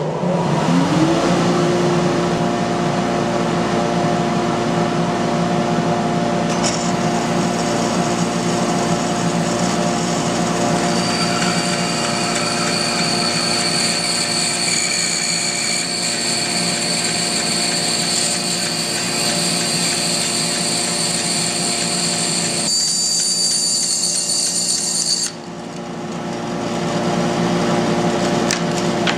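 Bandsaw resawing a red oak board, with a dust collector running. The machines hum steadily after coming up to speed in the first second; about 7 seconds in the blade enters the oak and a higher-pitched cutting sound joins the hum, stopping suddenly about 25 seconds in as the cut ends.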